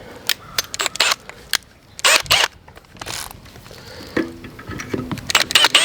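Cordless drill triggered in a few short bursts, its motor whining up and down, with clicks and rattles of the drill being handled between the bursts, as it is set against a concrete lid to drill for anchor screws.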